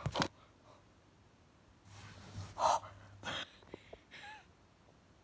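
A person breathing hard and gasping in fright, with a short breath at the start, a louder gasp about two and a half seconds in followed by another breath, and a small whimper near the end.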